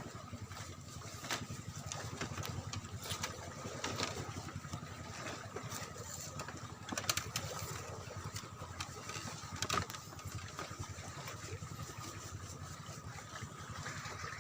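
A small engine running steadily, a low rapid chugging with a steady whine above it and scattered light clicks.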